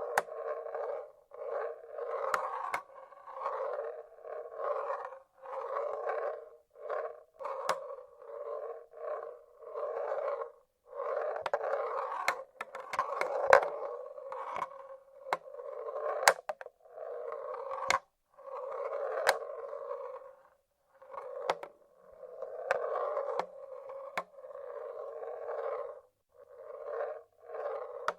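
Marbles rolling along the tracks of a wooden marble-run machine, one rolling run after another, each lasting about a second, with sharp clicks where marbles drop and knock against the wood.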